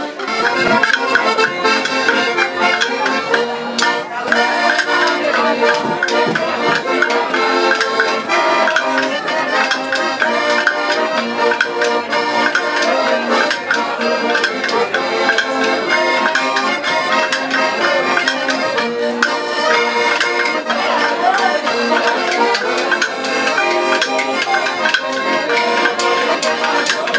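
Several accordions playing a traditional folk tune live, steadily throughout.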